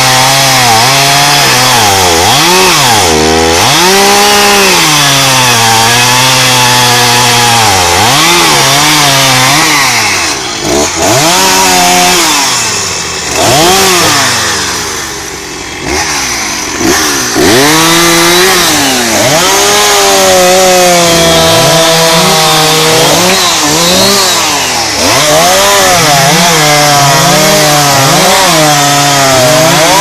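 Two-stroke chainsaw cutting through the limbs of a felled tree, its engine revving up under the throttle and dropping back between cuts over and over. About halfway through it eases off toward idle for a few seconds before cutting again.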